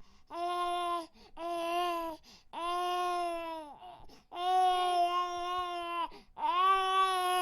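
Baby crying: five wails, each held on a steady pitch, broken by short pauses for breath, the last two the longest.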